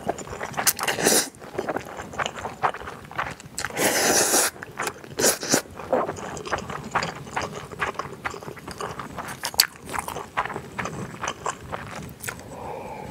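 Close-miked mukbang eating of spicy stir-fried instant noodles: the noodles are slurped up from chopsticks, with the longest slurp about four seconds in, then chewed with many short wet smacking clicks.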